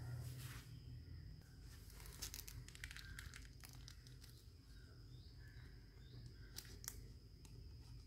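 Faint crinkling and rustling of thin clear plastic wrapping on a small toy doll as it is handled in the fingers, coming as scattered crackles, thickest a couple of seconds in and again near the end, over a faint steady hum.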